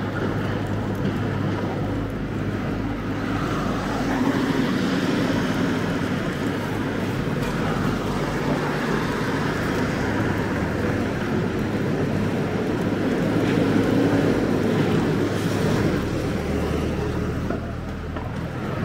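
City street traffic: cars and vans passing on the road alongside, a steady hum that swells about four seconds in and again past the middle as vehicles go by.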